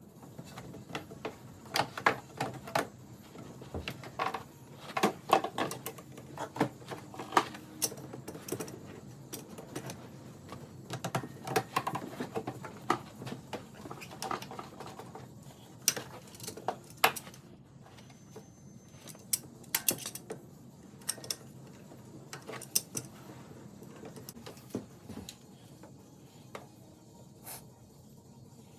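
Metal hand tools clinking and knocking against engine parts: irregular clicks and clanks, some in quick clusters, a few sharper knocks around the middle.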